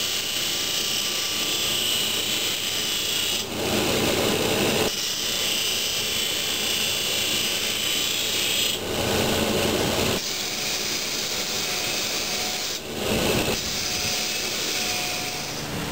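A farrier's abrasive tool working on a hoof or horseshoe: long stretches of steady rasping noise, broken by short pauses about every four seconds.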